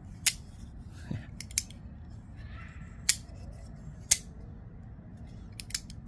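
Sharp metallic clicks of a partly reassembled folding knife's blade being snapped open and shut against its detent, testing that the Vanchor button lock engages without catching. About eight irregularly spaced clicks, some in quick pairs.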